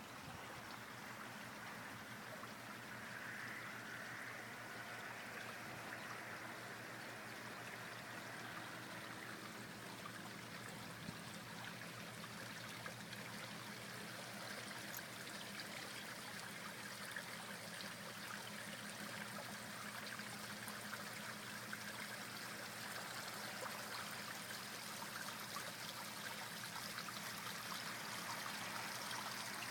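Water running and trickling steadily, with a faint steady low hum underneath.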